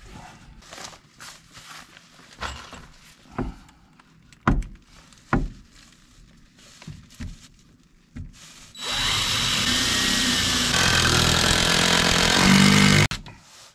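A power saw cutting through a wooden board for about four seconds and stopping abruptly near the end. Before it come scattered knocks and clatter of wood being handled.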